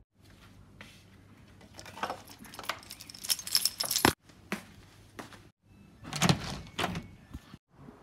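Keys jingling among clattering handling noises and a few sharp clicks and knocks, louder around two and four seconds in and again near six seconds; the sound breaks off suddenly a few times.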